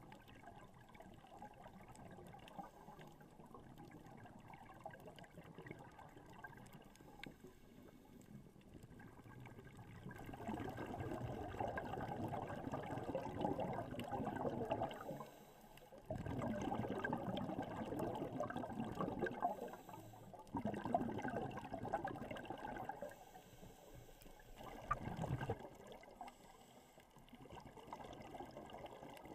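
Underwater sound through a GoPro housing: a diver's exhaled bubbles rushing up from the scuba regulator in repeated bursts of a few seconds each, starting about a third of the way in, after a quieter stretch of low water noise.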